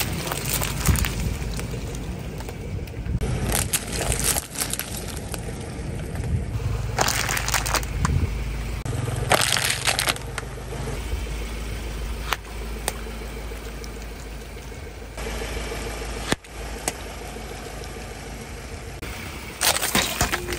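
A car tyre rolling over plastic cups and bottles packed with water beads, the plastic crackling and cracking and the beads squashing, in several separate bursts. A car engine's low hum runs underneath.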